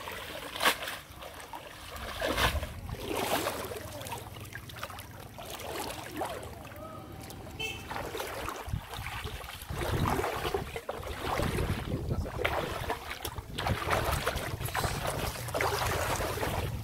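Shallow floodwater splashing and sloshing around a person's legs as they wade and haul up a wet cast net, in irregular swells.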